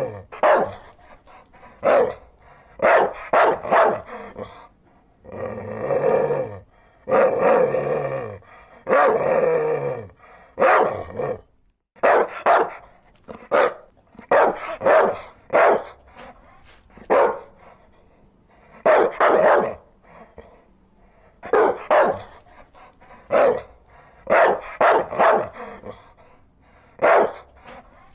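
Dog barking in short single and double barks, with several longer, drawn-out calls that fall in pitch in the first ten seconds.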